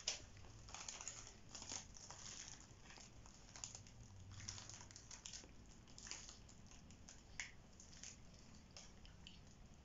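Faint, intermittent crinkling and rustling of plastic packaging being handled, with a few soft clicks.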